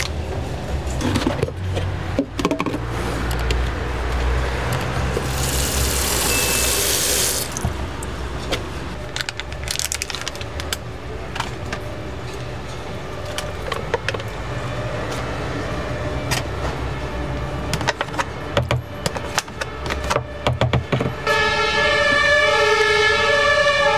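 Steady street-traffic rumble with plastic tubs clicking and knocking as they are opened and emptied into a plastic bowl, and a hiss lasting about two seconds a quarter of the way in. About three seconds before the end a two-tone emergency-vehicle siren starts up and becomes the loudest sound.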